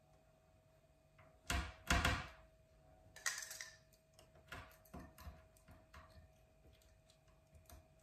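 Kitchen cupboard door pushed shut with two knocks, then a short rasp of Velcro and a run of light clicks and taps as a small Velcro-backed scent hide is pressed onto the door front, over a faint steady hum.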